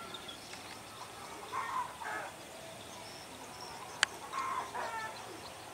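Short bird calls, a few notes at a time, come in two groups: about one and a half seconds in and again after four seconds. A single sharp click comes just before the second group.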